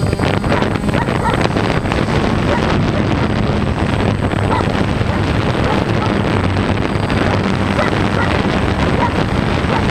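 DJI Phantom 1 quadcopter's motors and propellers buzzing steadily in flight, heard through the camera it carries, with wind rushing over the microphone.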